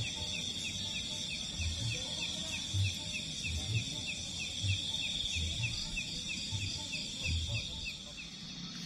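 Night insects: a steady high-pitched drone with a short chirp repeating about three times a second, and irregular low thumps underneath. The chirping stops about eight seconds in.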